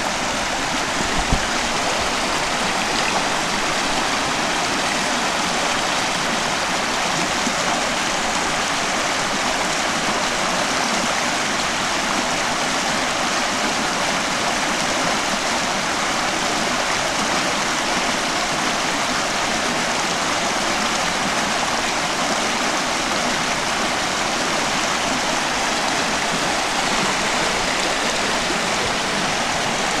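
Rocky forest stream rushing over stones and small cascades: a steady, full rush of water. A single low thump about a second in.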